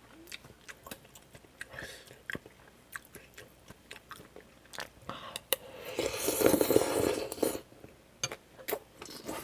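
Close-up mouth sounds of a person eating kimchi stew: wet chewing and biting with small clicks and crunches, and one louder, longer wet mouth sound about six seconds in.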